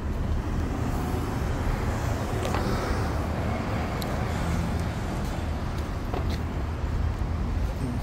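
Steady city street traffic: cars passing on a multi-lane road, a continuous low rumble with a few faint ticks.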